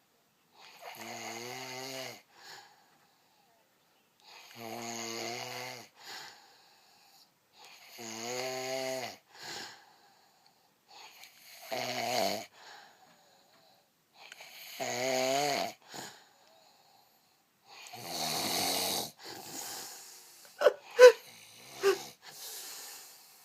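A sleeping person snoring loudly: six rattling, droning snores on the in-breath, one about every three and a half seconds. A few short, sharp sounds come near the end.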